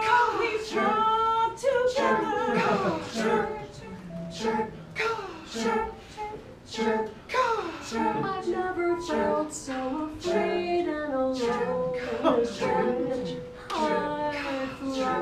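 Voices singing an improvised a cappella song, in short phrases with no instruments.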